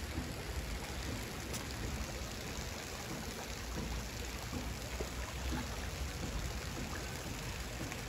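Shallow creek water running over rocks, a steady rush.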